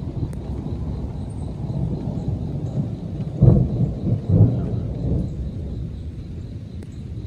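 Thunder rumbling steadily, swelling into two louder rolls about three and a half and four and a half seconds in.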